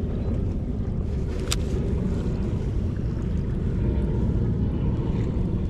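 Wind buffeting the microphone out on open water, a steady low rumble, with one short sharp click about a second and a half in.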